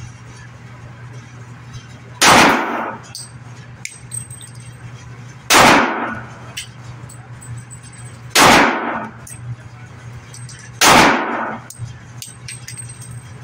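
Four slow, aimed shots from a Smith & Wesson M&P 2.0 compact pistol in .40 S&W, fired a few seconds apart. Each is a sharp crack with a short echoing tail off the walls of an indoor range. A steady low hum runs underneath.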